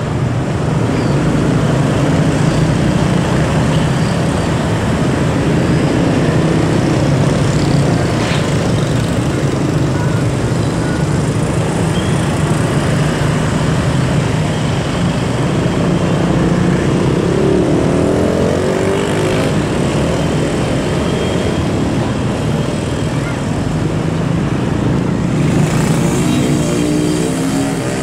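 Steady low engine drone from an approaching Prambanan Ekspres diesel multiple-unit train, with road traffic noise around it.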